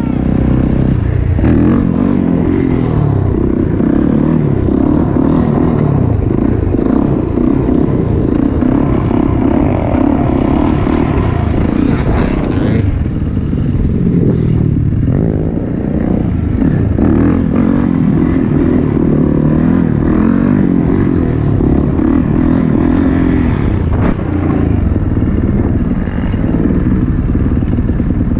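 Yamaha YZ450F dirt bike's single-cylinder four-stroke engine being ridden hard, revving up and down over and over as the throttle is opened and closed.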